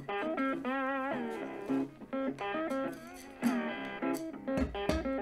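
Background music: a guitar playing a slow, bluesy melody of held notes with vibrato, with deeper low notes joining near the end.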